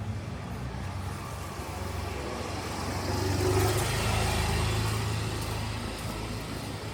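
Street traffic: a motor vehicle's engine running, getting louder as it passes close about halfway through, then fading.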